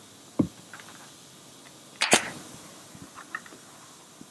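A pneumatic upholstery stapler fires once about two seconds in, a sharp double crack with a short tail, driving a staple through the vinyl attachment flap into the plastic console lid frame. A dull knock comes just before, under half a second in.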